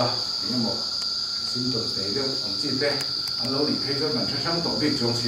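Crickets chirring in a steady high-pitched drone, with people talking indistinctly underneath.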